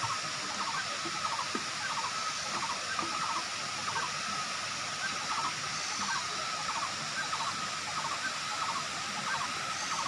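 Kuang Si Falls' cascades rushing steadily over the terraced pools. A faint high chirping repeats about twice a second over the water.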